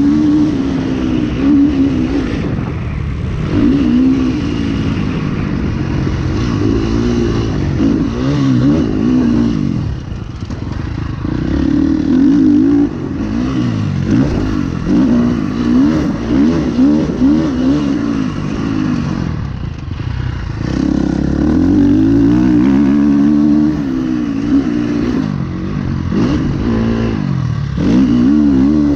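Four-stroke motocross bike's engine, heard from on the bike, revving up and backing off over and over as it is ridden around a dirt track. The engine drops off briefly about a third and two-thirds of the way through.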